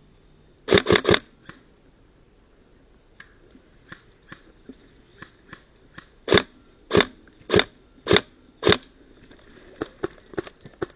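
Airsoft gun firing close to the microphone: a quick burst of three shots, then, after a pause, five single shots a little over half a second apart. Fainter clicks and pops from other airsoft guns come in between and near the end.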